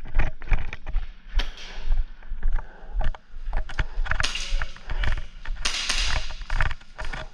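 Airsoft guns firing in a skirmish: scattered sharp shots and clicks, with a few longer noisy bursts.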